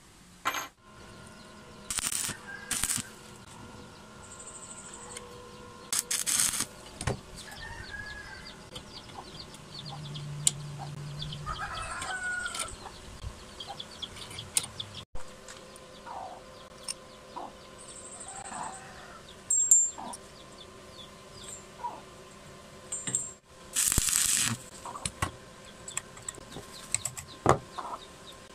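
Chickens clucking and a rooster crowing, with scattered sharp metal clanks and taps from hand tools on a steel workbench.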